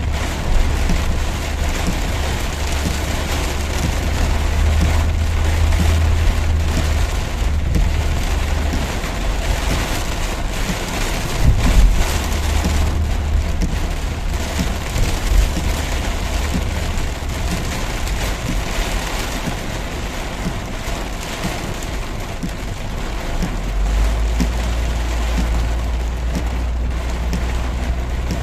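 Heavy rain pouring down steadily over a low vehicle rumble, with a brief louder knock near the middle.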